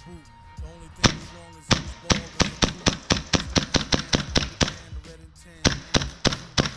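Tokyo Marui Hi-Capa 5.1 Gold Match gas-blowback airsoft pistol firing: sharp cracks with the slide cycling. After two spaced shots it fires rapidly, about three to four a second, with a short pause about five seconds in. Background music plays underneath.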